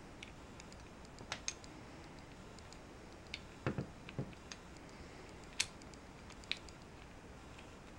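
Small square-section wooden burr puzzle pieces clicking and knocking against each other as they are handled and slid into place. Irregular sharp clicks, with a duller knock a little before halfway and a crisp click just past halfway.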